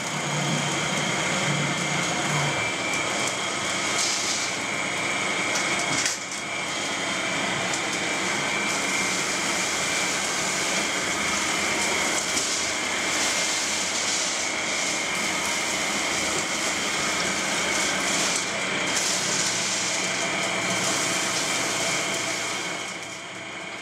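Seawater running from a hose and splashing over pearls in plastic baskets as they are rinsed, a steady rush with a steady high whine running through it.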